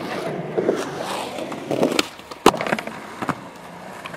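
Skateboard wheels rolling on concrete, with two sharp clacks of the board about two seconds in, half a second apart.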